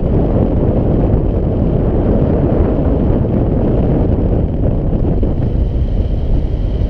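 Wind noise from the airflow of paraglider flight buffeting a GoPro Hero 4 Black's microphone: a steady, loud, low-pitched rush.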